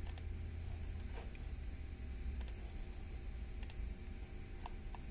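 Computer mouse clicking: three quick double clicks a little over a second apart, over a low steady hum.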